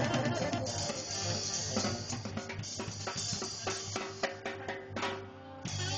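Live band music with the drum kit to the fore: rapid stick hits on drums and cymbals over steady sustained instrument tones. The playing thins briefly near the end, then comes back loud.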